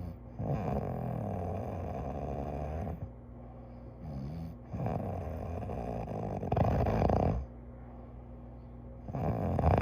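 A person snoring in sleep: two long snores of about two and a half seconds each, the second growing louder toward its end, and a third starting near the end, over a steady low hum.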